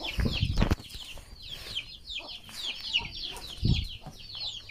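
A brood of chicks peeping: many short, high chirps, each falling in pitch, in a rapid continuous chatter. Low muffled thumps near the start and again about three and a half seconds in.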